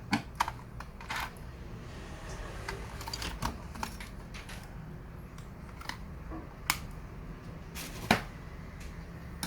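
Scattered light clicks and taps of small laptop parts being handled and set down during disassembly, with a sharper knock about eight seconds in.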